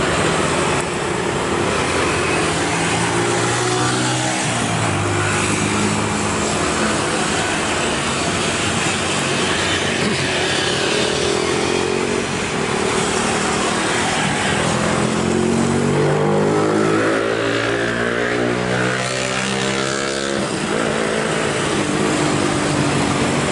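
Road vehicle engines, likely motorcycles, passing close by over steady traffic noise. The engine pitch drops about four seconds in, then climbs for several seconds and falls again near the end.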